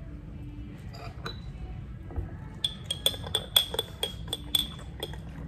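Teaspoon stirring in a small ceramic coffee cup: a quick run of high, ringing clinks, about six a second, starting about halfway through and lasting about two seconds.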